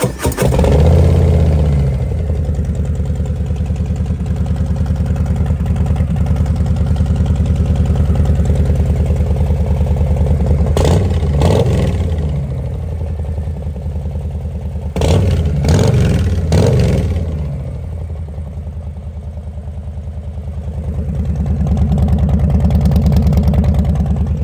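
Harley-Davidson Low Rider ST's Milwaukee-Eight 117 V-twin, its stock exhaust baffles and packing removed, starting cold and running loud at a fast idle. The throttle is blipped twice about eleven seconds in and three times around fifteen to seventeen seconds, and the idle then settles and swells a little near the end.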